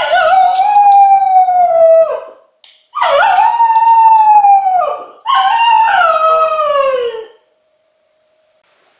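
English cocker spaniel howling: three long howls, each falling in pitch as it ends. It is the howling of a dog with separation anxiety.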